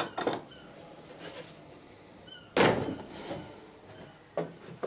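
Tools and timber handled at a wooden boat's stem: a few light clicks and taps, and one loud wooden thunk about halfway through.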